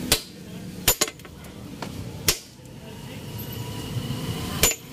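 About five sharp metallic knocks and clinks, irregularly spaced, from hand work on a bare diesel engine block.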